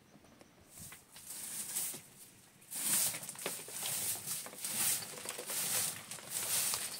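Twig broom sweeping a dirt floor in repeated scratchy strokes. They start about a second in and grow louder from about three seconds in.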